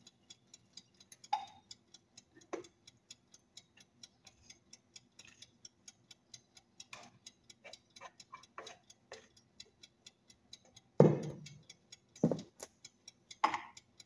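Rapid, faint ticking, several ticks a second, with a few scrapes and knocks of a plastic spatula against a stainless-steel mixing bowl as cake batter is poured into a loaf pan. The loudest knocks come about 11 and 12 seconds in.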